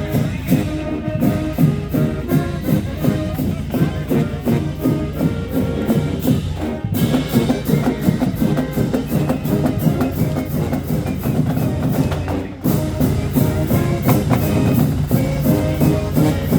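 Marching band playing: brass holding chords over drums and cymbals keeping a steady beat. The music drops out briefly about seven seconds in and again near thirteen seconds.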